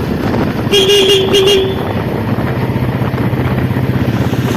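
Royal Enfield Bullet's single-cylinder engine running steadily, with a horn giving a few short toots about a second in.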